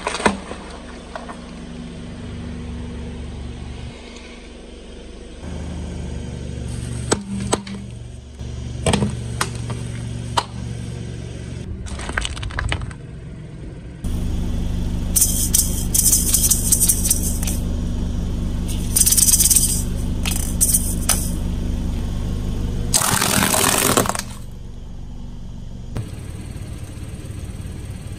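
Car engine running slowly as its tyre rolls over objects: a sharp crack as carved watermelons split under the tyre, then scattered cracks, and later a louder run of repeated crunching bursts.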